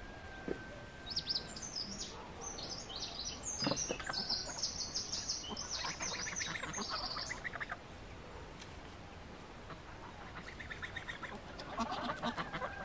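Small birds chirping rapidly in quick high notes for several seconds. Near the end, domestic geese call with short honks and chattering.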